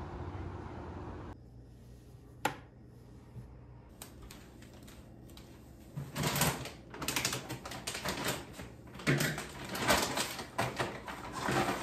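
A sharp single click, then several bursts of rapid clicking and clattering, like objects being handled.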